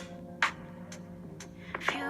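Background music: soft sustained instrumental notes with a steady low hum and a couple of sharp clicks.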